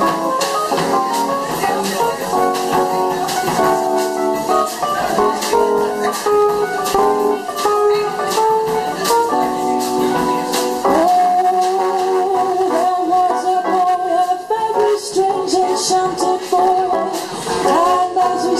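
Live jazz combo in a bossa nova feel playing an instrumental passage: keyboard chords over double bass, with drums keeping a steady tick on the cymbals. About eleven seconds in, a long held, wavering melody note takes over above the chords.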